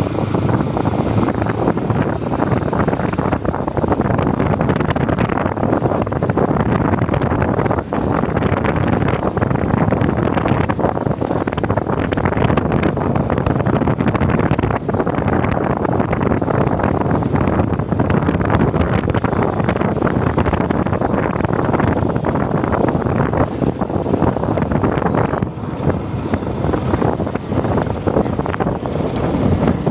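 Wind rushing over the microphone of a moving motorcycle, with the bike's running noise underneath, steady throughout.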